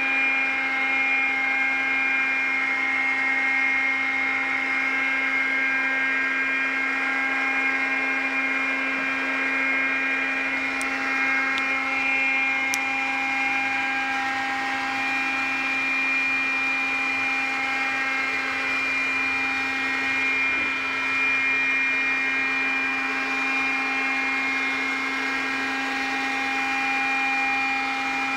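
iRobot Scooba floor-washing robot running as it scrubs a wet tiled floor: a steady motor whine with several held tones.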